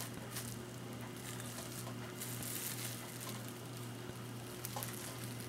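Faint crinkling and rustling of a clear plastic wrapper being peeled off a snack cake, in a few scattered bursts over a steady low hum.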